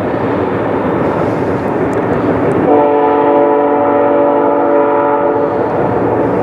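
Nathan Airchime locomotive air horn sounding one held multi-note chord of about three seconds, starting a little under three seconds in, over the steady rushing noise of the moving train.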